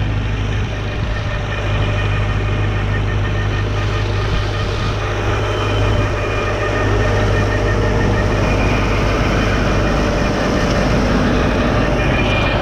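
Engine running steadily, a continuous low hum with fainter higher steady tones above it.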